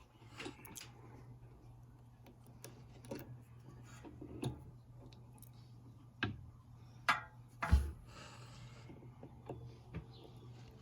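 Scattered small clicks, ticks and rubbing of fan wires and connectors being handled while the wiring is connected, the sharpest clicks a little past the middle, over a faint steady low hum.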